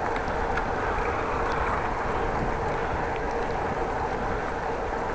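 Bicycle riding at speed: steady wind rush over a chest-mounted action camera's microphone together with tyre rolling noise, with a faint steady whine and a few light ticks.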